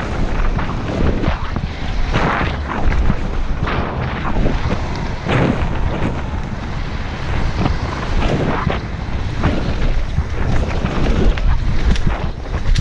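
Wind buffeting a helmet-mounted camera during a fast mountain-bike descent, over a continuous rumble of knobby tyres on dirt and gravel, with frequent short clatters as the bike hits roots, rocks and bumps.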